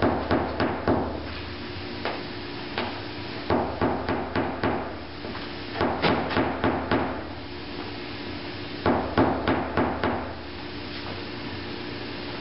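Light, quick hammer taps on a rounded knockdown tool held against a car body panel, in four bursts of about six taps each, a few seconds apart. The taps are knocking down a high spot left from pulling a hail dent with a glue tab.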